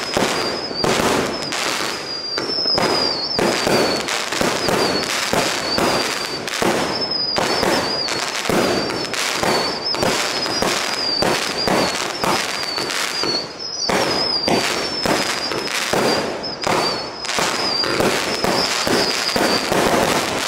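A 100-shot, 20 mm fireworks cake firing in rapid succession: dense cracks and bangs of the shots and their bursts, several a second, under an almost unbroken high, wavering whistle from the whistle-tail shots. The whistling stops shortly before the end while the cracking carries on.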